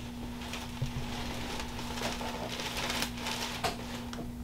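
Quiet room tone with a steady low electrical hum and scattered faint clicks and rustles, the clearest tick about a second in.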